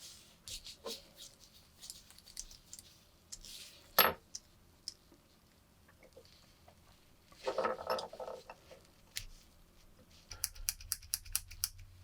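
Small metal parts handled at a workbench: scattered light clicks, one sharp knock about four seconds in, and a brief ringing metallic clatter about eight seconds in. Near the end a quick run of clicks, several a second, starts over a low hum.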